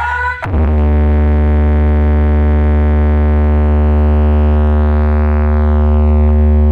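A loud, steady electronic bass drone with many overtones, played through a large stack of DJ speaker boxes. It holds one pitch, with a brief dip about half a second in.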